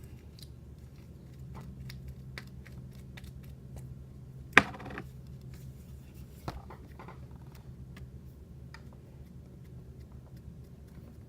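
Slime being handled and squished by hand: scattered small sticky clicks and pops, with one sharper pop about four and a half seconds in.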